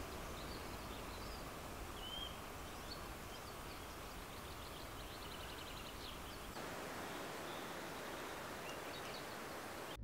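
Forest ambience with a steady background hiss and faint calls of small birds: a short whistled note about two seconds in and a quick trill about five to six seconds in. The low part of the hiss drops a little after six and a half seconds.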